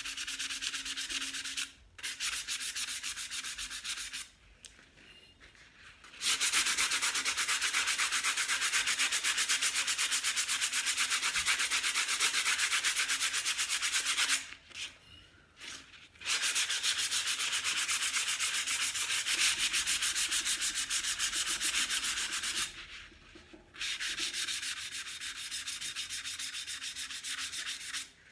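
Sandpaper rubbing by hand on a painted glass jar: quick back-and-forth rasping strokes in several long bouts with short pauses between them, scuffing through the paint to distress it.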